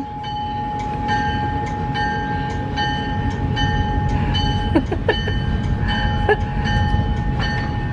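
Uncoupled locomotive moving off on the siding to run around its train, its bell ringing steadily, about twice a second, over a low engine rumble.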